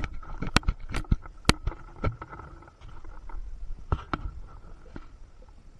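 Hand tools being picked up, handled and set down on a workbench: a string of sharp clicks and knocks, most of them in the first two seconds, with a few more around four seconds in.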